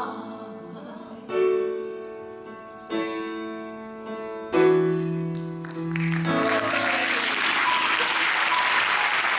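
Piano playing the three closing chords of a song, each struck and left to ring away, then an audience starts applauding about six seconds in and keeps clapping.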